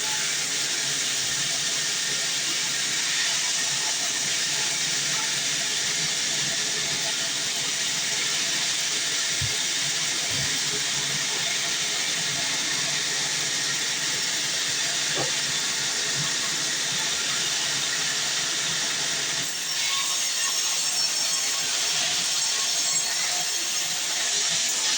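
Sawmill bandsaw blade running through a heavy, dense log, giving a steady, even hiss.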